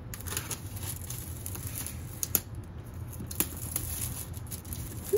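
Clear plastic wrap being peeled and crinkled off a boxed laptop, rustling, with a few sharp ticks and taps, the sharpest about two and a half seconds in, over a low steady hum.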